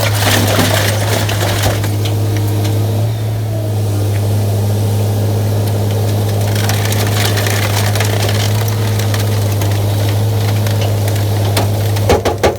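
Sierra 656SL metal shear baler running: a steady low hum from its power unit and hydraulics, with a few sharp metallic knocks near the end.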